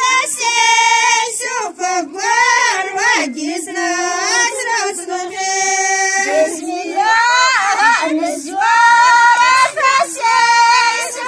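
High-pitched women's voices singing a wedding song without instruments, in phrases of long held notes joined by gliding pitch changes.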